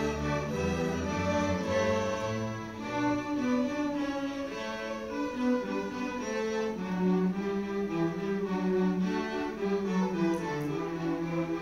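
Middle-school string orchestra of violins and cellos playing together, holding notes that move in steps, with the cellos carrying a low line beneath the violins.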